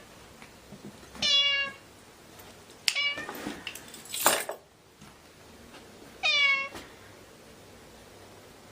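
Domestic cat meowing: two clear half-second meows about five seconds apart, with a shorter call and a sharp click in between, and a brief noisy sound just after.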